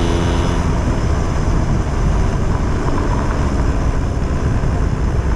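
Yamaha Jog scooter-based mini bike on the move, its small engine running under a steady rush of wind noise on the camera microphone.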